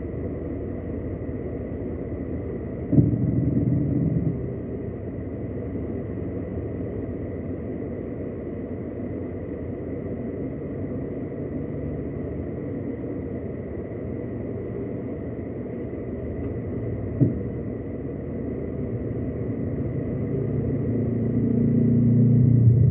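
Steady low rumble of a car's engine and road noise in slow, queued traffic. There is a sudden louder stretch about three seconds in and a short click later, and the rumble swells near the end as another vehicle draws close.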